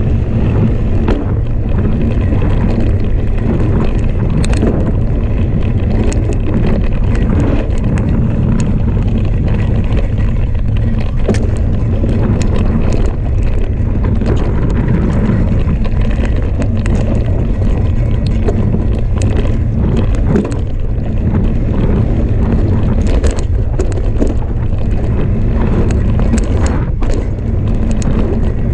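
Wind rushing over the microphone of a camera riding on a Specialized Enduro Comp mountain bike descending a dirt trail at speed, with a steady rumble of tyres on dirt. Frequent short clatters and clicks from the bike rattling over bumps run through it.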